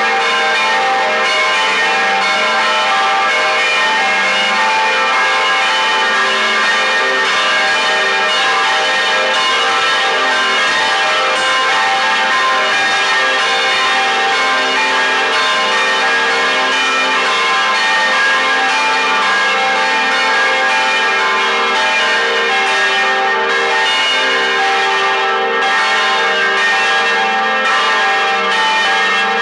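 Church bells of the Taal Basilica bell tower ringing without pause, many bell tones overlapping into one dense, steady peal.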